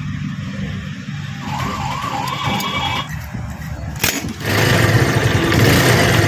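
Bajaj Pulsar 220 single-cylinder engine running, becoming much louder about four and a half seconds in, just after a sharp click. A brief warbling tone is heard about two seconds in.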